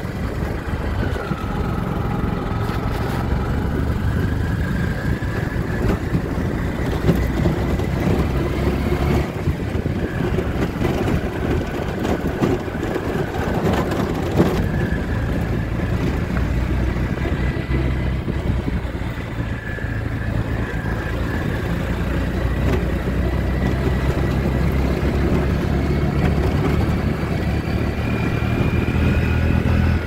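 A motor vehicle's engine running steadily as it drives along, heard from on board, with a faint whine that drifts up and down in pitch.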